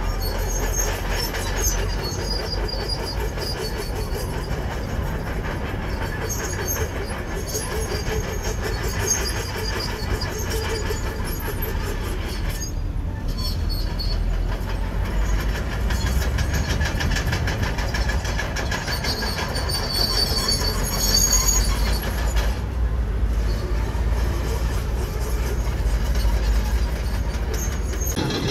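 Komatsu crawler bulldozer working: its diesel engine runs steadily under the squeal and clatter of its steel tracks. The sound drops out briefly twice, about halfway through and near the end.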